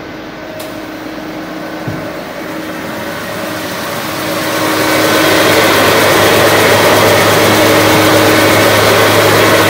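Elio Valeri 4M/65E wood copy lathe running: a steady mechanical whir over a low hum. It grows louder about four seconds in, then holds steady.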